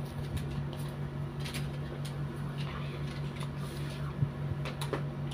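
Steady low hum of the room with faint rustling and light plastic clicks as stickers and toy makeup pieces are handled, and a small sharp tick about four seconds in.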